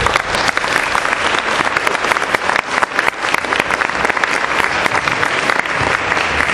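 Audience applauding: many hands clapping at once in a dense, steady stream.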